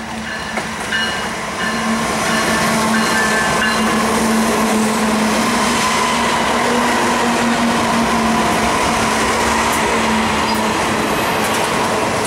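BNSF freight train with GE diesel locomotives passing close by. A steady low engine hum and rolling noise swell as the lead units go by about two seconds in, then the freight cars roll past on the rails.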